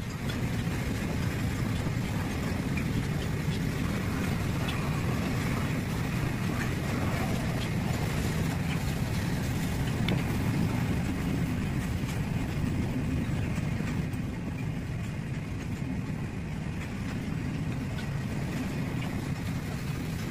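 Long goods train hauled by a WAG-12 electric locomotive rolling past, a steady rumble of wagon wheels on the track with occasional faint clicks.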